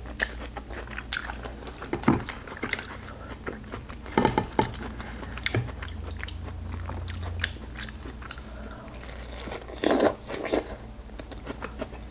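Close-up eating sounds: biting into and chewing sauce-covered corn on the cob, with many small wet mouth clicks and a few louder bites scattered through.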